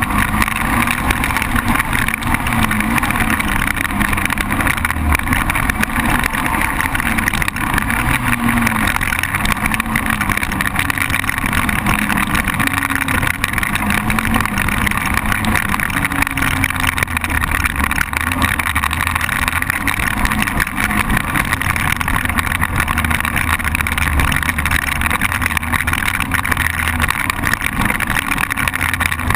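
ATV engine running as the quad is ridden along a trail, its pitch rising and falling repeatedly with the throttle.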